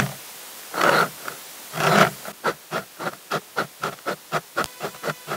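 An axe edge drawn repeatedly through the ceramic grindstone of a Fiskars Xsharp sharpener in axe mode, each pass a short scrape. Three slower passes come about a second apart, then a sped-up run of quicker passes at about four a second.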